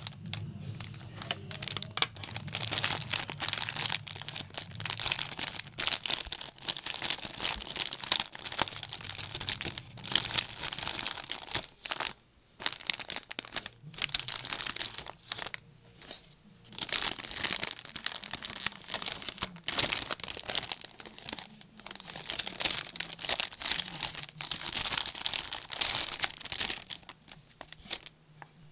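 Clear plastic packaging around felting wool crinkling as it is handled by hand, in stretches of crackling broken by a couple of short pauses.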